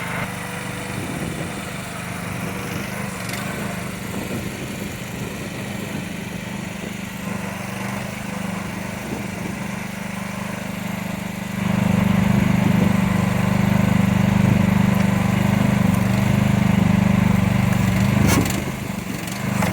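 Small engine of a mini excavator running steadily. It gets louder about 12 seconds in and stays up, with a short dip near the end, as the machine is worked.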